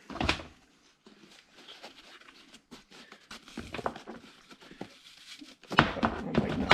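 Scattered clicks, scrapes and crinkling of thin sheet steel as a cut-open Fleetguard spin-on oil filter is pried and peeled apart by hand, with a louder stretch of scraping near the end.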